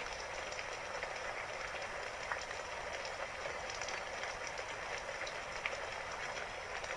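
Steady rainfall: an even hiss of rain with many small individual drops ticking through it.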